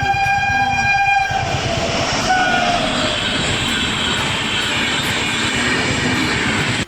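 A passing train: its horn sounds a held, many-toned blast that stops about a second in, then the steady noise of the train running past continues until it cuts off suddenly.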